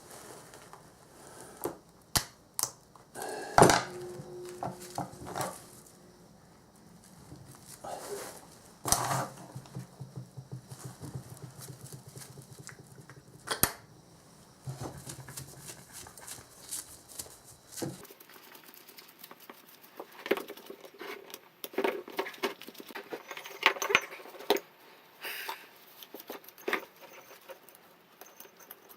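Scattered clinks, knocks and small metallic clatters of metal parts and hand tools being handled on a work surface, some ringing briefly. About halfway through the background hum drops away and the clicks come faster and lighter.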